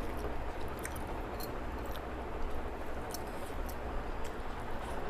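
A person chewing food close to the microphone, with scattered small wet clicks of the mouth, over a steady low background hum.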